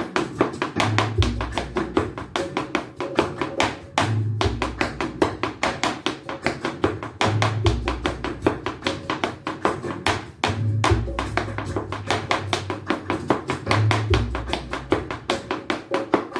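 Flamenco shoes striking a hard floor in rapid escobilla footwork (zapateado) in a four-beat compás, with a backing music track whose bass figure repeats about every three seconds.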